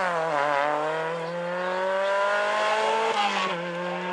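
Peugeot 106 rally car's engine accelerating away from a hairpin, its pitch climbing steadily through one gear, then dropping with an upshift about three seconds in and pulling on in the next gear.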